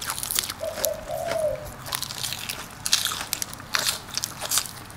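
Close-up crunching and chewing of crisp raw food from a spicy raw-shrimp salad with fresh vegetables: a run of irregular crunchy bites. A brief hummed "mm" comes about half a second in.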